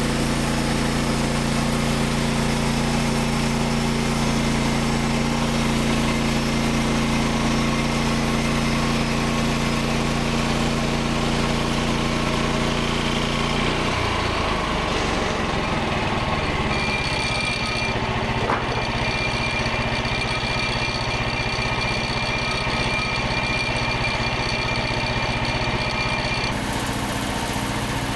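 Frontier OS27 portable bandsaw mill's small petrol engine running steadily. About halfway through its note changes abruptly and settles lower, and a thin high whine runs alongside it for several seconds.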